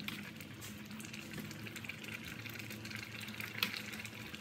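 Pot of vegetable soup simmering with a steady bubbling hiss as a metal ladle stirs it, with one sharp clink of the ladle against the pot about three and a half seconds in, over a low steady hum.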